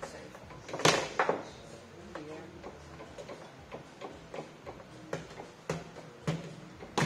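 Foosball game in play: the ball and the table's rod figures clacking as the ball is struck and knocked about. There is a cluster of loud knocks about a second in, then lighter, scattered clicks.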